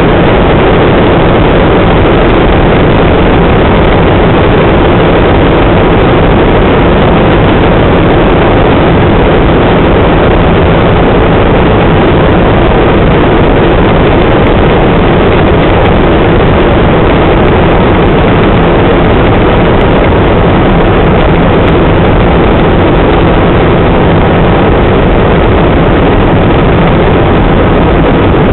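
Helicopter engine and rotor noise heard from inside the cabin in flight: a loud, steady, unchanging drone.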